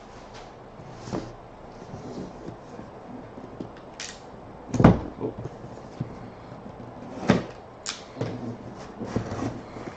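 A boxed hockey memorabilia package being handled and opened by hand: scattered knocks, scrapes and rustles of cardboard and packing. The loudest is a thump about five seconds in, with another sharp knock a little after seven seconds.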